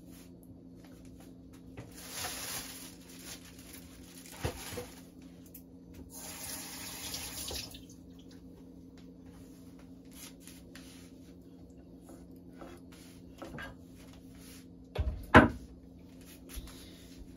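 A kitchen tap runs twice, each time for about a second and a half, with water splashing into the sink, over a steady low hum. A loud knock comes about fifteen seconds in.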